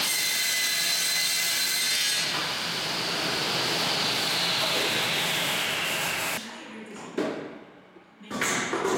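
Elcon vertical panel saw's circular blade cutting through a wooden board: a loud, steady cutting noise with a high whine that slowly sinks in pitch. About six seconds in the cutting noise stops, followed by a few short knocks.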